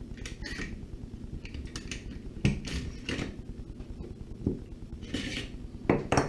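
Bolt carrier of a Tokyo Marui M4A1 MWS gas blowback airsoft rifle being drawn out of the upper receiver: a series of sharp clicks and knocks with short scrapes of parts sliding against each other.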